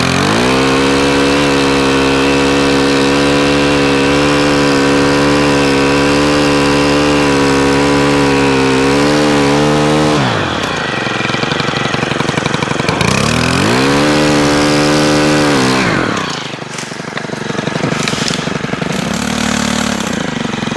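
Stihl HT103 pole saw's small 4-MIX engine revved to full throttle for about ten seconds, dropping back to idle, then revved again for a few seconds before settling to a low idle near the end.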